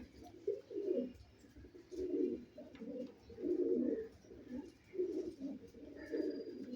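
Rampuri pigeons cooing: about five low, rolling coos, one every second or so.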